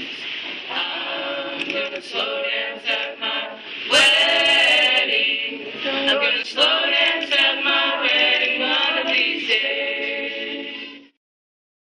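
A group of people singing together without instruments. The singing gets louder about four seconds in and cuts off abruptly near the end.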